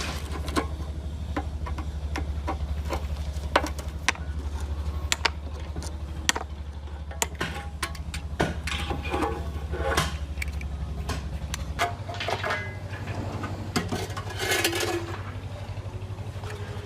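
A steady low mechanical hum, shifting in pitch about twelve seconds in, under scattered sharp clicks and knocks of metal work.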